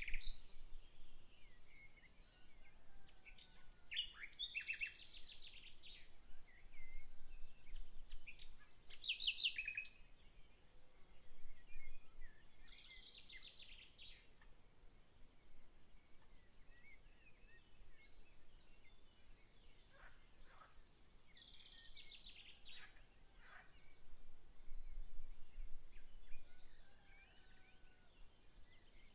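Songbirds singing short, quick phrases every few seconds, over a faint steady outdoor background noise.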